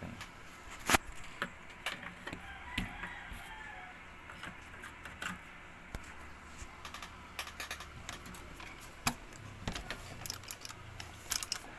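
Scattered clicks and light knocks from a stand fan being handled, its plug, cord and wire grille, while the fan stands still; the sharpest click comes about a second in and a cluster of clicks near the end.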